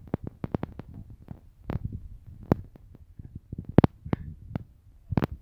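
Irregular small clicks and a few louder knocks over a low rumble: handling noise from a hand-held phone as the person moves about over grass and fallen leaves.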